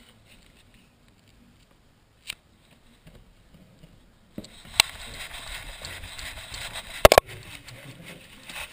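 Handling noise from a GoPro strapped to a Boston Terrier's head. It is nearly quiet at first with one click, then about halfway through a steady rustle of the strap and housing begins as the dog moves, with a few clicks and two sharp knocks near the end.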